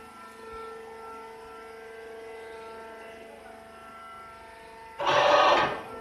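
Steady motor hum from hydraulic baling machinery. About five seconds in comes a loud hiss lasting just under a second.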